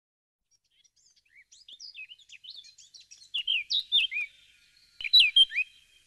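Male Asian fairy-bluebird singing: quick soft twittering that builds into two louder phrases of clear whistled notes, mostly falling slurs, in the second half.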